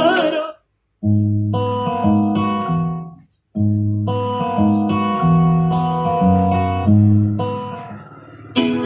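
Recorded music played back through a 2.1 amplifier and speakers: an instrumental passage of plucked-string notes over a heavy bass line. It stops dead twice for a moment, about half a second in and again around three seconds in.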